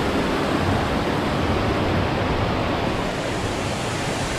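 Rocky river rapids rushing steadily. The river is running high with a strong current.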